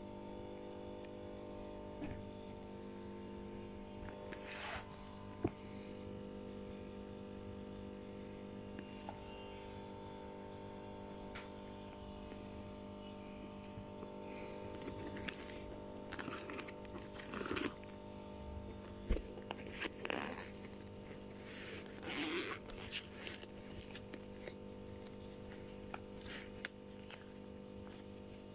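Zippers being pulled and a clear plastic bag and pouches being handled: short scraping, rustling strokes in bursts, most of them in the second half, over a steady electrical hum.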